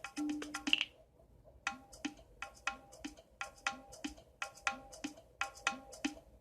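Percussive dance music: a quick, steady beat of wood-block-like knocks over low drum notes, with a short break about a second in.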